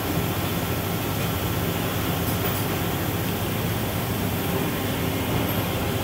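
Steady machine-shop noise: a constant low hum under an even hiss from running machinery and ventilation, with no distinct knocks or motor starts.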